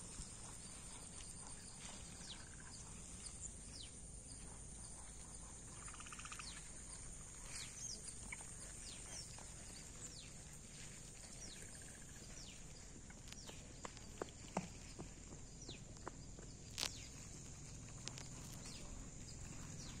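Outdoor nature ambience: a steady high-pitched insect drone with many short, falling bird chirps scattered through it, and a few sharp clicks in the second half.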